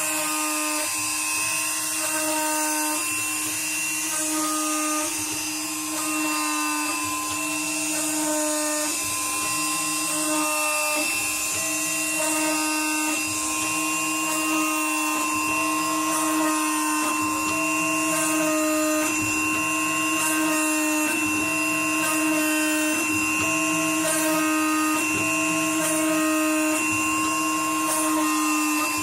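Homemade CNC machine running. A steady motor whine runs throughout, and the printer-salvaged stepper motors whine in short moves at changing pitches, about one every second.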